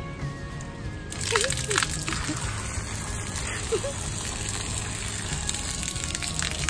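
Running water gushing and splashing down, starting suddenly about a second in and running on steadily.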